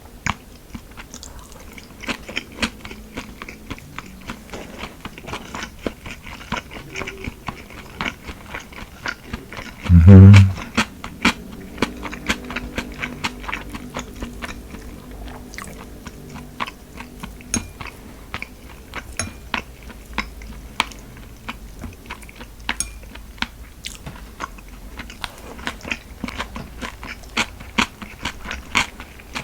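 Close-miked chewing and biting of food, with many small wet mouth clicks and crunches. About ten seconds in there is one brief, loud, low sound.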